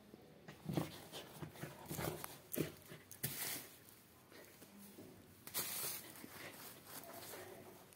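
A puppy digging and scrabbling in loose sand and nosing a woven plastic sack: irregular scuffs and thumps, with two brief rustles, one a little past three seconds in and one a little past five and a half.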